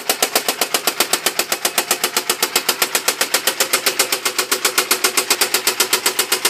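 Chery Eastar engine running with a very loud, rhythmic knock, about eight or nine knocks a second. The knock comes from connecting-rod bearings that have been hammered out and damaged, with a rod loose on its journal.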